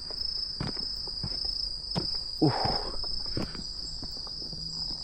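A steady, high-pitched chorus of insects, with scattered light knocks and a brief louder noisy sound about two and a half seconds in.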